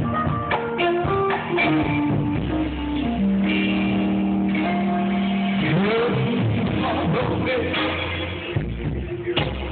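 Live band playing through a concert PA, with guitar prominent over bass and drums. A long held note is followed by gliding, bending notes about six seconds in.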